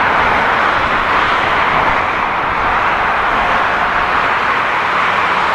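Airbus A330-300 airliner landing, its General Electric CF6 jet engines giving a steady rushing roar as it flares over the runway.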